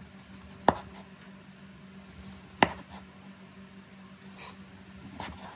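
Chef's knife slicing cooked beef on a wooden cutting board: two sharp knocks of the blade hitting the board, about two seconds apart, with fainter cutting knocks near the end.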